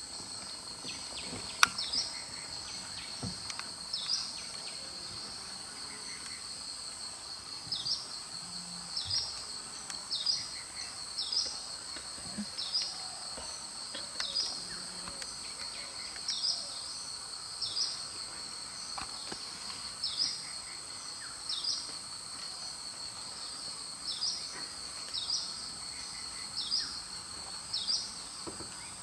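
Steady high-pitched insect drone, like cicadas or crickets, with short chirping calls repeated about once a second. A single sharp click sounds about one and a half seconds in.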